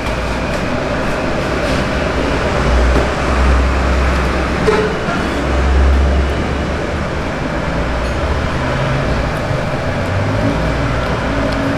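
Steady road traffic noise, with the low rumble of passing vehicles swelling about three and six seconds in, and one brief clink near the middle.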